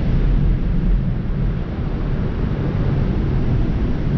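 Steady low rumble of traffic on the freeway bridge overhead, mixed with wind buffeting the microphone.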